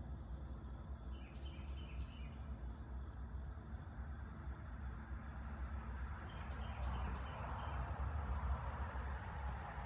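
Outdoor ambience with a steady, high-pitched insect drone like crickets singing, over a low rumble. A wash of noise swells through the middle and latter part, with a few brief high chips.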